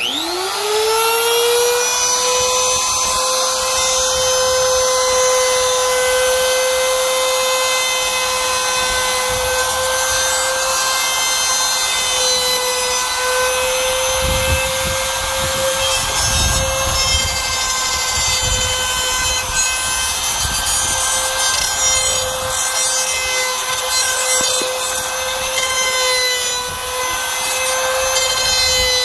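Drill Master router switched on, its motor spinning up to a steady high whine. It then runs under load as its bit cuts the slot edges of an aluminium 2040 extrusion into a V, with a rougher cutting noise heaviest around the middle.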